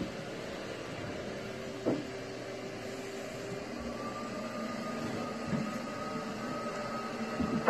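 Steady machine hum with faint whining tones, broken by a few soft knocks.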